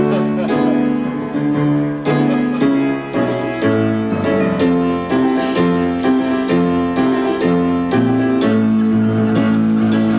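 Piano music that starts abruptly: a melody over a moving bass line, with notes changing about every half second.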